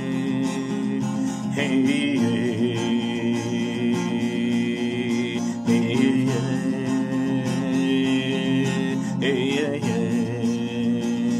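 A man singing in long held notes with vibrato while playing chords on a capoed acoustic guitar.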